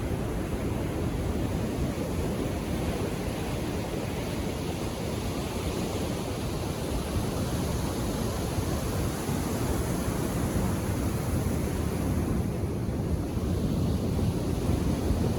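Indian Ocean surf washing onto a beach: a steady low rush of breaking waves, swelling slightly near the end.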